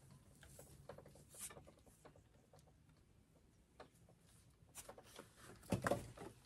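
Faint rustling and small clicks of gear and fabric being handled, with a louder burst of knocks and rustling close to the microphone about six seconds in.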